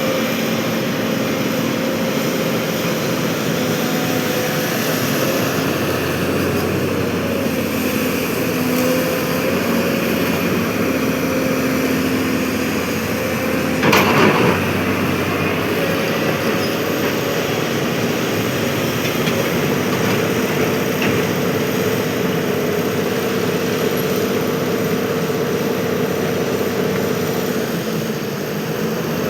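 Hydraulic excavator's diesel engine running steadily under working load, with one sharp knock about halfway through.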